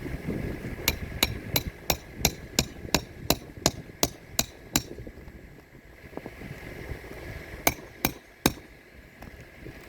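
A hammer driving roofing nails by hand to fasten a new asphalt shingle: a quick run of about a dozen even strikes, about three a second, then a pause and three more strikes near the end.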